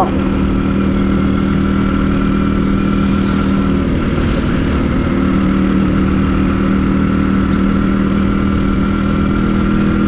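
Motorcycle engine running steadily at an even cruising speed, its pitch holding flat with no revving, over a constant rush of wind and road noise.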